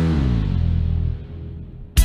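Background music: a held chord slides down in pitch and fades away, then the music starts again with a sharp beat near the end.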